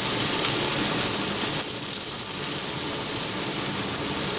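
Bone-in pork chops sizzling steadily on a hot flat-top griddle.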